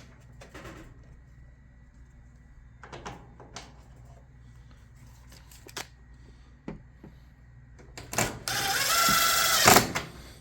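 Scattered light clicks and taps of screws and parts being handled, then about eight seconds in a power drill-driver runs for about a second and a half with a rising whine, driving a screw.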